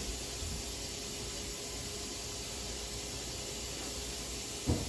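Steady background hiss with a faint steady hum, broken near the end by one brief short sound.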